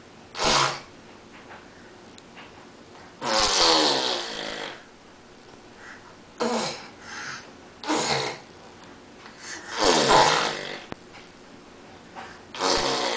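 Young children making wordless vocal noises in six short bursts, the longest lasting over a second, with quiet between them.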